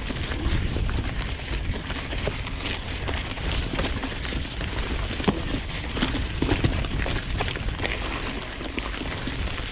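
Nukeproof Mega 275 mountain bike ridden over a trail, heard from a mounted action camera: steady wind noise on the microphone, with tyres on dirt and frequent rattles and knocks from the bike.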